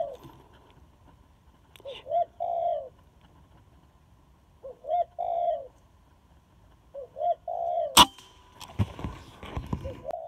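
A spotted dove cooing, four phrases about two and a half seconds apart, each two short notes then a longer one. About eight seconds in, a single sharp crack of the scoped rifle firing, the loudest sound, followed by a few low knocks.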